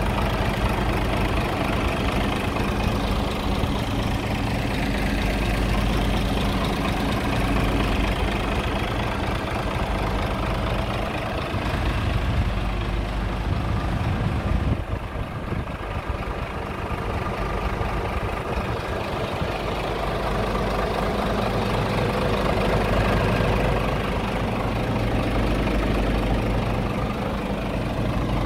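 Scania R truck's diesel engine idling steadily.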